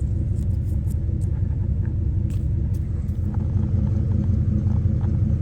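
Steady low rumble of an idling Chevrolet Tahoe engine, with a few faint clicks in the first half.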